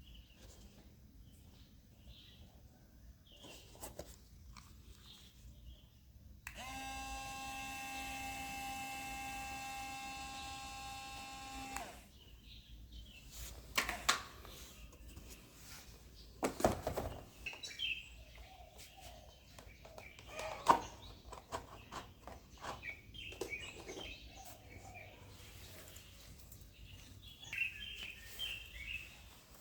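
A small battery-powered DC motor, the fan of a cardboard model air conditioner, runs with a steady hum for about five seconds and then stops. Sharp clicks and knocks of handling follow, with faint bird chirps behind.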